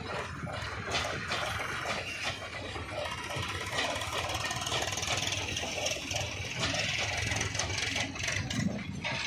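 Passenger train coaches rolling past, their wheels clattering over rail joints in a quick, uneven run of clacks over a steady rumble.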